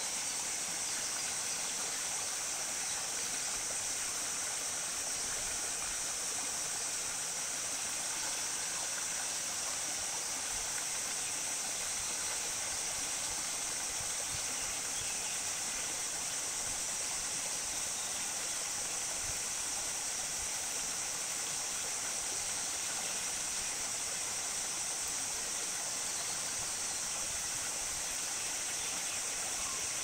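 Shallow rocky stream running steadily over stones and small ledges, an even rushing hiss that never changes.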